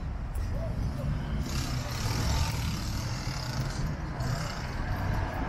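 City street traffic: a steady low rumble of passing vehicles, with tyre hiss rising about one and a half seconds in.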